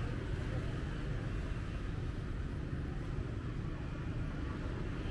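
Steady city street ambience: an even, low rumble of traffic with no single sound standing out.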